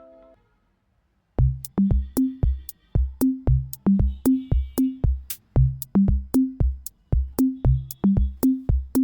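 Background music: a melody cuts out just after the start, and after about a second of silence a steady electronic drum-machine beat comes in and keeps going.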